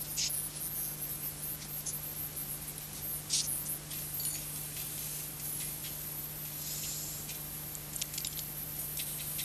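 Scrambled pay-TV audio played back from a VHS tape: a steady low hum under a constant high hiss, with irregular crackles and clicks scattered through it and no intelligible speech.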